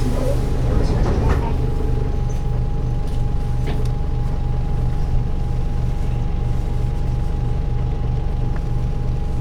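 Nissan Diesel Space Runner bus's PF6HT six-cylinder diesel engine running steadily with an even low throb and no change in engine speed, heard from inside the bus, with a short rustling hiss about a second in.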